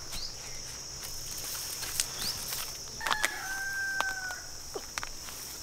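A rooster crows once, a single held call about three seconds in lasting about a second and a half, over a steady high insect drone of crickets; a few sharp clicks fall in between.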